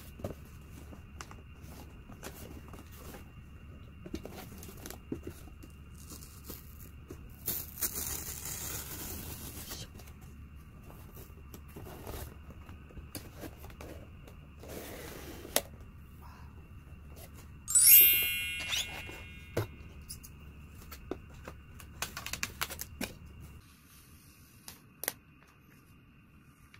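Packaging being handled and torn open: scattered taps and clicks, with two longer stretches of tearing. About 18 s in comes a sharp ringing clink that fades over about a second.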